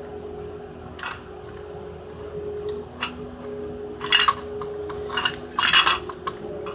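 Hard objects clattering and rattling in several short bursts as a robotic arm grabs at a TV remote, with the busiest clatter in the second half, over a steady low hum.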